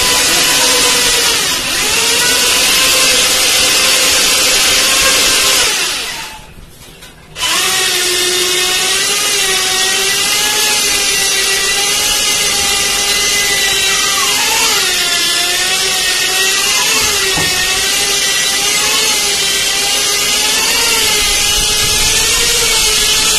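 Handheld electric drill-type honing machine working inside a motorcycle engine cylinder bore, with a loud steady motor whine whose pitch wavers as it loads up. It stops about six seconds in and starts again a second and a half later.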